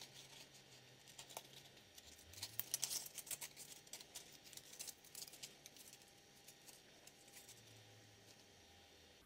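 Faint handling noises of sandpaper and steel binder clips being fitted onto a wooden sanding block: light rustling with small scattered clicks, busiest about three seconds in and dying away after about six seconds.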